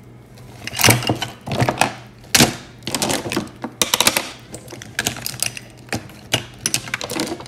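Makeup items clattering and clicking as they are gathered up and packed into a makeup bag, in several short rattling spells.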